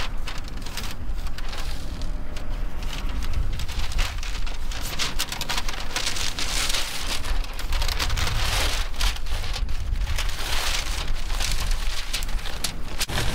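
Wind buffeting the microphone, with dense crinkling and rustling of a plastic house-wrap sheet being handled while an inflatable mattress is set up.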